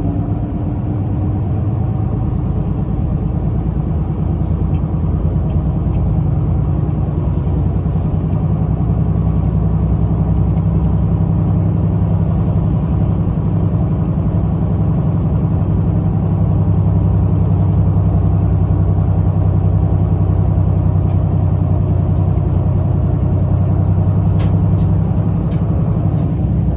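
City bus's engine running and its road noise heard from inside the cabin as it drives along: a steady low drone that grows slightly louder about two-thirds of the way through. A few light clicks near the end.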